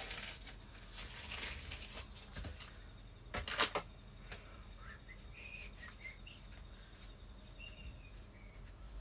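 Faint rustling and handling sounds from food preparation at a kitchen sink, with a few sharp clicks about three and a half seconds in. Several short, high squeaks follow in the second half.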